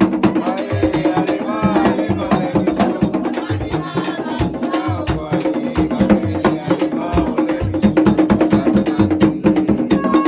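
Haitian Vodou ceremonial music: drums and a rapid clicking percussion pattern keep a steady fast rhythm, with voices singing over it.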